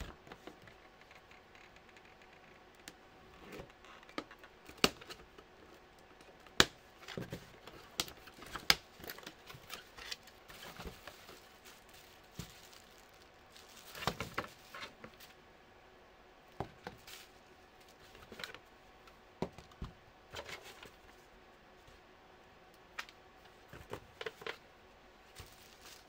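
Handling noise from unboxing: a cardboard box opened and small plastic fan parts in their packaging lifted out and set down on a table, making scattered sharp clicks and taps. A longer rustle of wrapping comes about halfway through.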